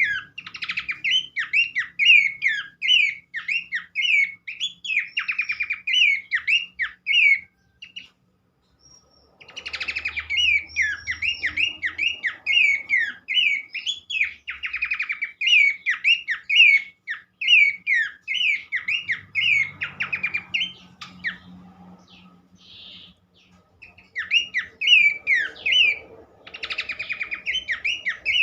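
Pelanduk semak (Horsfield's babbler) song: fast runs of quick, chirping whistled notes, broken by a pause of about two seconds and a quieter lull later on.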